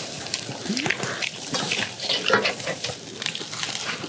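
Chicken heart skewers sizzling over a charcoal grill: a steady hiss with scattered crackles and small clicks.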